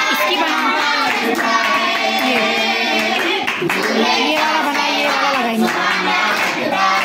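A group of women and girls singing a song together, clapping their hands in time.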